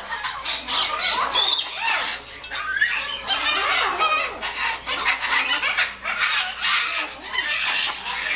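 African grey parrot chattering: a continuous run of short squawks, clucks and quick whistled glides.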